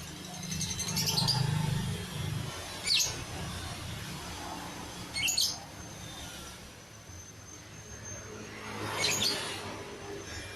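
Lovebird giving short, shrill chirps in separate bursts, about four of them a couple of seconds apart, over a low background rumble.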